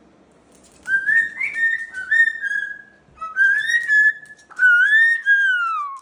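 Moluccan cockatoo whistling: three long whistled phrases, the last one gliding down at its end.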